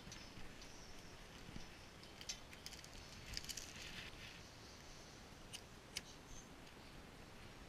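Faint rubbing and scratching of a scouring pad scrubbing along a metal tube, with scattered light scrapes. Later come two sharp clicks about half a second apart, as a lighter is struck to light a handheld gas torch.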